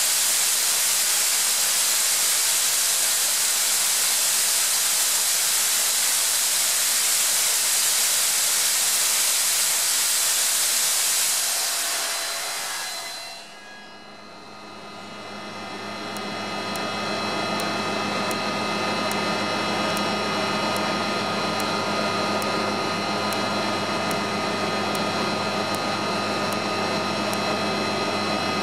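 Atlas Copco ZR 355 oil-free screw air compressor running. A loud steady hiss of air venting, typical of the blow-off while running unloaded, cuts off about halfway through. After a short dip, the machine's hum and tonal whine build up over a few seconds and then run steadily, as it goes onto load.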